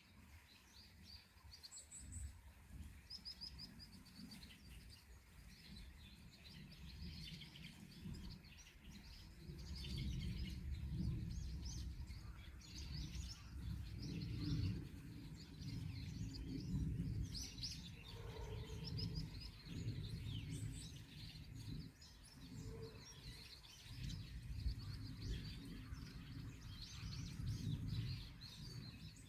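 Small birds chirping and singing, many short calls and trills overlapping, with a low rumble rising and falling underneath.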